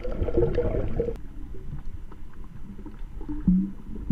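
Muffled underwater sound from a camera held just below the sea surface: water sloshing and gurgling around the housing. It changes abruptly about a second in, and there are short low tones near the end.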